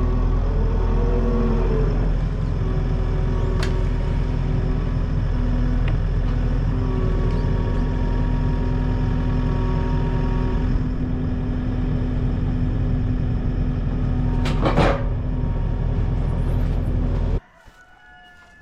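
Engine of a machine running steadily at a constant pitch, with a couple of sharp knocks, then shut off abruptly near the end.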